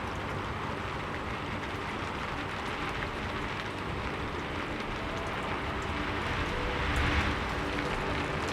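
Steady rain ambience with soft, sustained background music notes beneath it; the rain swells louder about seven seconds in.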